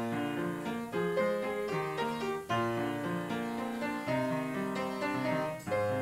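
Piano music: a melody played over held chords, with notes changing every half second or so.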